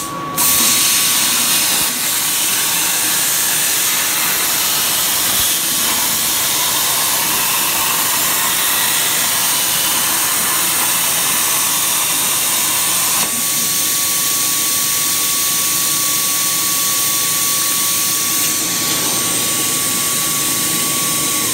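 CNC plasma cutter torch cutting steel plate: a loud, steady hiss of the plasma arc and air that jumps up a moment in as the torch restarts after its pause between cuts, with a thin high whistle over parts of it.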